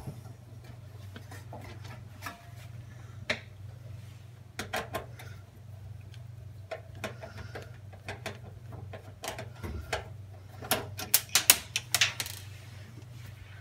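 Scattered clicks and taps of a screwdriver and metal parts as the mounting screw is backed out and the temperature probe is pulled from the back panel of an electric oven, with a quick run of sharper clicks near the end. A steady low hum runs underneath.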